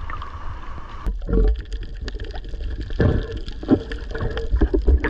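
Sea water washing around an action camera at the surface, then about a second in the camera goes under and the sound turns muffled: a low underwater rumble with gurgling and small clicks and knocks from water moving against the housing.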